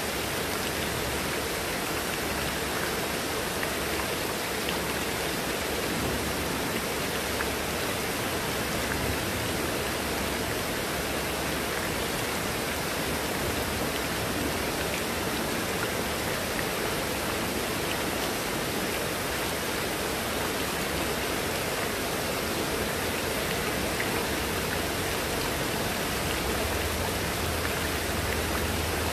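Heavy rain falling steadily on leaves and wet paving, with water pouring off a roof edge: a dense, even hiss that does not change.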